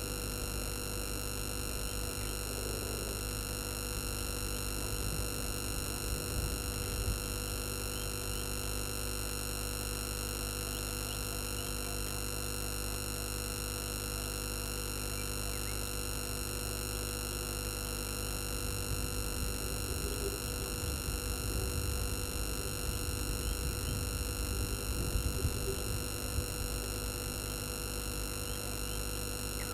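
Steady electrical hum and whine made of many fixed tones, over low rumbling noise that grows louder for several seconds past the middle; a few faint, brief chirps.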